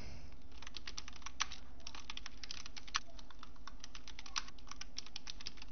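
Typing on a computer keyboard: quick, uneven key clicks over a faint steady hum.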